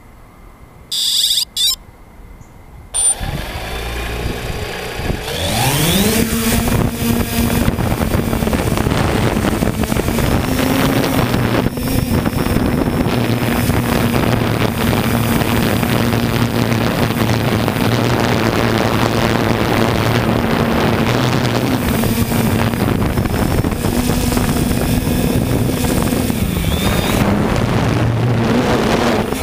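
A drone's motors and propellers heard through its own onboard camera. After two short beeps, the motors start about three seconds in and rise in pitch as it lifts off. They then settle into a steady high hum with rushing air as it climbs.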